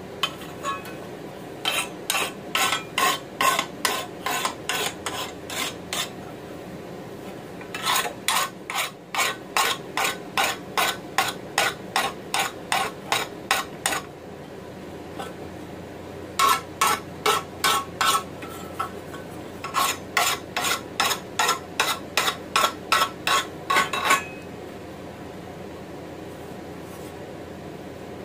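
Hand file rasping along the edges of a hand-forged mild-steel frying pan handle, taking off burrs: four runs of quick back-and-forth strokes, about two a second, with short pauses between runs.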